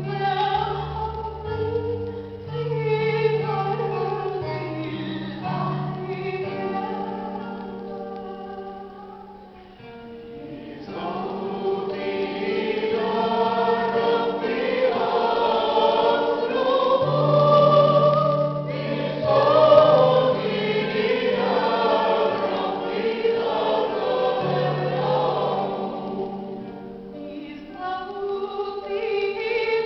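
Mixed church choir singing an Arabic hymn in parts, accompanied by an electronic keyboard holding sustained low notes. The singing dips briefly about ten seconds in, then swells louder through the middle.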